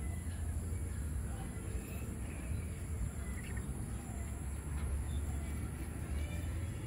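Outdoor background sound: a steady low rumble with a few faint bird chirps.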